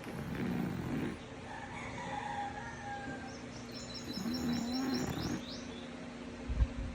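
French bulldog snoring: a long raspy snore early on and another about four seconds in, with high chirping tones in between. A few dull knocks near the end.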